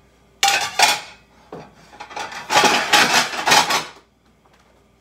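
Plates clattering against each other as one is pulled off a stack in a kitchen cupboard, in several bursts that stop about four seconds in.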